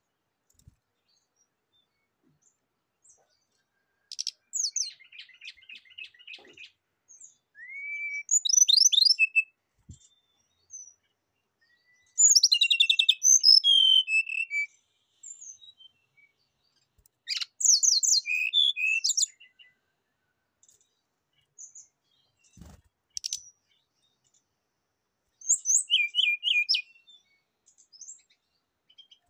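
Brown-chested jungle flycatcher singing: about five short phrases of high, rapid trills and whistles, separated by pauses of a few seconds.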